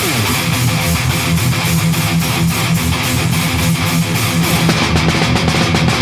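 Death metal band playing at full volume: heavily distorted electric guitars and bass with fast, steady drumming, all coming in together at the start with a short downward guitar slide.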